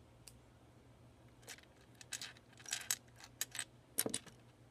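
Loose plastic Lego pieces clicking and rattling against each other as they are picked through by hand: a run of quick sharp clicks over about three seconds, the loudest near the end.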